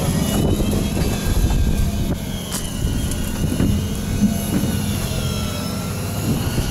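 Fishing boat's engine running steadily: a low, rumbling drone with a constant hum, with a couple of faint knocks in the middle.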